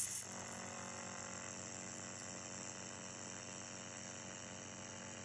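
A loud hiss from the laser welding cuts off right at the start, leaving a steady electrical hum from the handheld laser welding machine with a faint regular pulsing.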